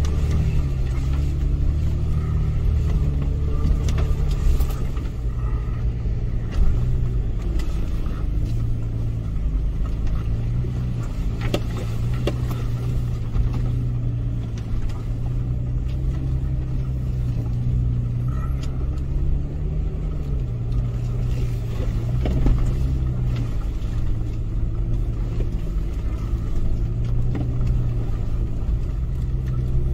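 Toyota FJ Cruiser's V6 engine running as it drives over a rough dirt track, heard from inside the cabin: a steady low rumble with the engine note rising and falling, and a few knocks and rattles from bumps.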